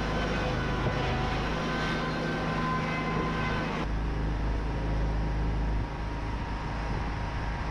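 Engine of Wood-Mizer sawmill equipment running steadily at a constant speed, a low rumble with several held tones. About four seconds in the tones change and the rumble grows heavier.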